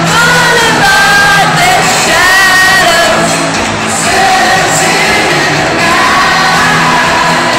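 Loud music filling a concert hall, with voices singing drawn-out lines over it and a crowd shouting.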